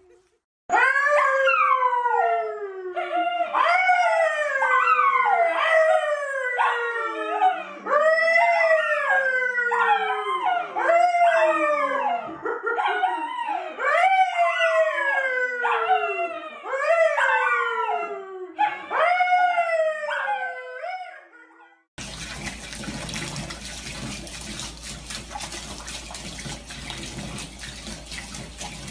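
A man and two dogs howling together: a long run of overlapping howls, each rising and then falling over a second or two. After about twenty seconds they give way to a tap running steadily into a bathtub.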